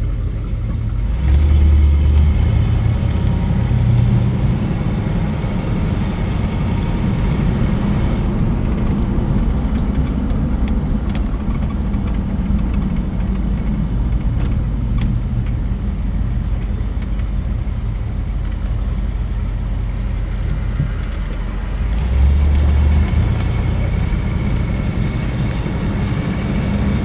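Classic Ford Thunderbird's engine running steadily while the car is driven, with road rumble; the engine note grows louder twice, about two seconds in and again near the end. The owner says the engine sounds like it has a bit of a camshaft in it.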